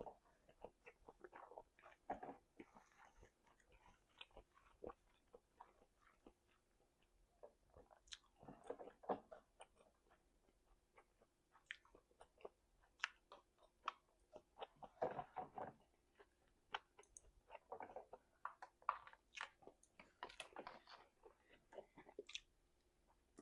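A person chewing and biting food close to the microphone: irregular small clicks and mouth sounds, with louder spells of chewing every few seconds.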